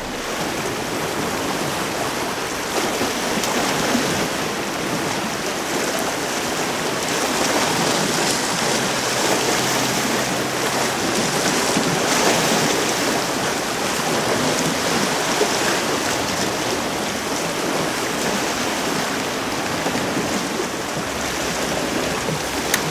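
Small sea waves washing and splashing against shoreline rocks, a steady, uneven hiss of moving water.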